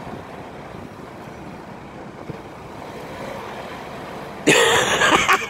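Engine of a panel van stuck on wet grass, running steadily and faintly. About four and a half seconds in, loud laughter breaks in over it.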